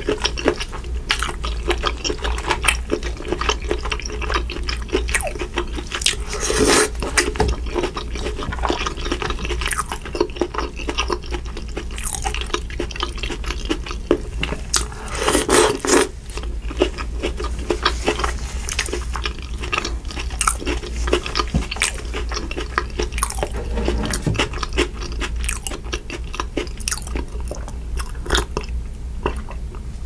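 Close-miked wet eating sounds: saucy chewing and lip smacking of butter-sauced crab meat, a dense run of sticky clicks and squishes, over a steady low hum.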